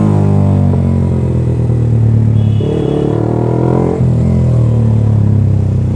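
Yamaha R15 V3's 155 cc single-cylinder engine running through a loud aftermarket SC Project exhaust at city riding speed: a steady, deep exhaust note that shifts briefly about halfway through.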